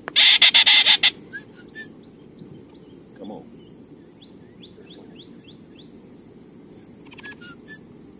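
About a second of loud, scratchy rustling right at the microphone, then small birds chirping across the marsh, with a run of quick rising chirps near the middle.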